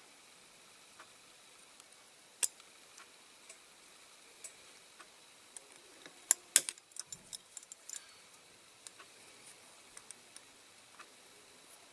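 Sparse small clicks and taps of diecast toy car parts being handled as its axle rods are nudged into place, with a quick cluster of sharper clicks about six and a half seconds in.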